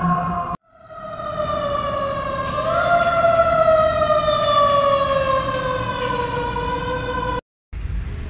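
Emergency vehicle siren sounding one long wail that steps up slightly about two and a half seconds in, then slowly falls in pitch before cutting off abruptly. After a brief gap comes a low traffic rumble.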